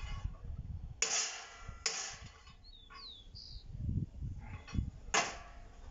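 Steel pipe wrench and its lever pipe clanking against a square steel bar clamped in a vise as the bar is twisted cold: three sharp metallic clanks that ring briefly, about a second in, just before two seconds and past five seconds. A bird chirps twice in between.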